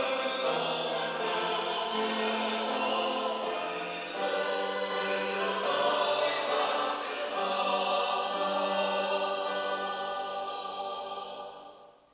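Church choir singing in harmony, holding sustained chords that change every second or two. The final chord fades away near the end.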